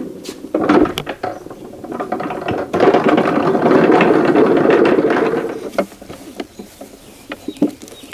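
Paint being scraped off a rusty cast-metal milling-machine hand wheel by hand: rasping scraping strokes, with the longest, loudest stretch of scraping in the middle, then lighter scrapes and clicks.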